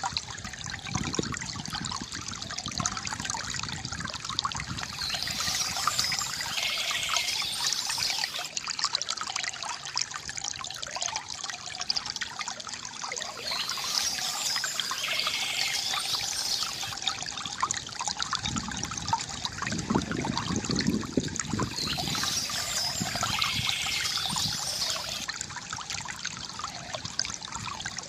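Water trickling and gurgling steadily from a bamboo fountain spout. Fuller, lower gurgling swells up briefly about a second in and again about two-thirds of the way through.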